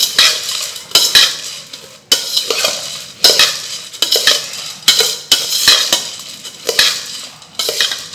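A metal spoon stirring dry puffed rice mixture (bhel puri) in a stainless steel bowl. The spoon scrapes against the steel in repeated strokes, about one to two a second, with the puffed rice rustling as it is tossed.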